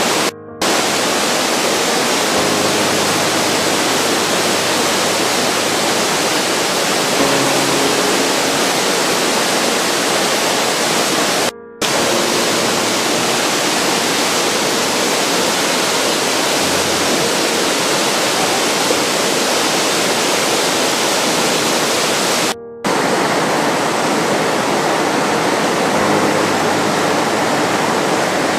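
Waterfall, a loud steady rush of falling water, cutting out briefly three times.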